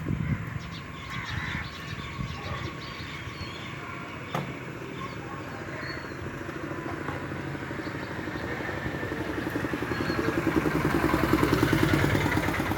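A motor vehicle engine running with a rapid, even pulse, growing steadily louder from about halfway through and loudest near the end as it approaches.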